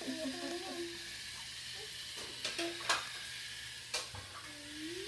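Small battery-powered toy train running along its track with a steady whirring hiss. A few sharp clicks come around the middle, and a soft rising voice-like tone comes near the end.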